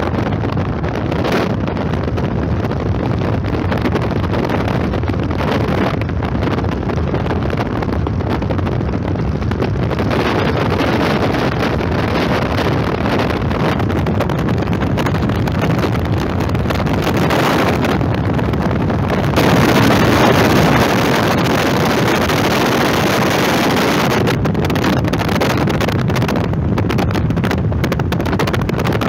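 Steady rushing noise of wind on the microphone mixed with the rumble of a car on the road, heard from a car window open to the air.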